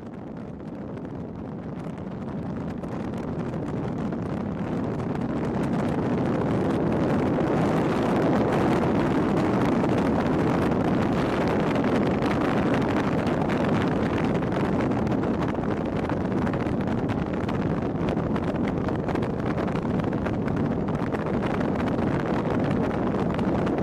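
Steady rushing wind and road noise of a car driving at speed, with wind buffeting the microphone; it grows louder over the first several seconds as the car speeds up, then holds steady.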